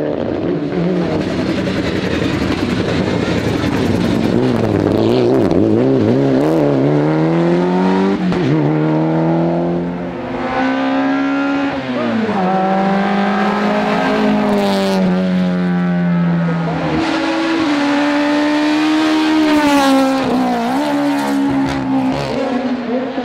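Race car engines accelerating hard up a hill-climb course, one car after another, each revving up and shifting up through the gears. A few sharp cracks come from the exhaust on the way.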